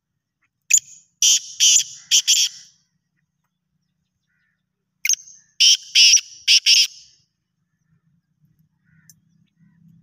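Black francolin calling: two call phrases, each a short lead note followed by four loud notes, the first beginning about a second in and the second about five seconds in.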